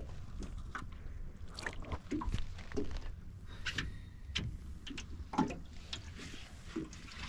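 Small boat drifting at sea: a steady low wind rumble on the microphone, with scattered small knocks, clicks and water slaps against the hull and fishing gear.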